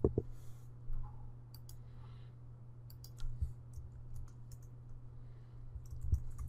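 Computer keyboard typing and mouse clicks, coming as scattered clicks in a few small clusters, over a steady low hum.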